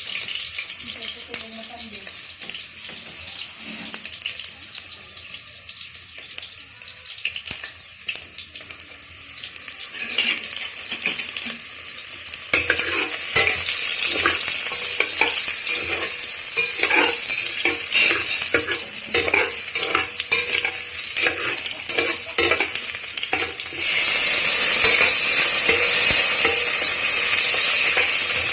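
Food sizzling in hot oil in a cooking pot as garlic, onion, ginger and chicken are sautéed, with repeated clicks of stirring. The sizzle gets louder about twelve seconds in and again a few seconds before the end.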